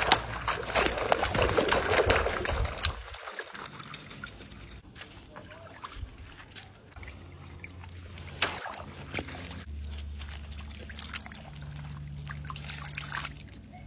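Water splashing loudly for about three seconds, then trickling and dripping with scattered small splashes.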